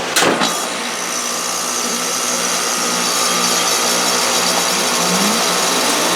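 A 2020 ICP Performance five-ton heat pump starting up in heat mode: a sharp clunk about a quarter second in as it kicks on, then its Copeland scroll compressor and outdoor fan running with a steady mechanical whir that grows a little louder.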